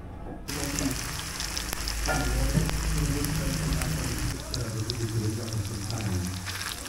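Batter-coated chicken pakodi pieces frying in hot oil in a kadai: a sizzle starts suddenly about half a second in as the pieces go into the oil, then keeps up steadily.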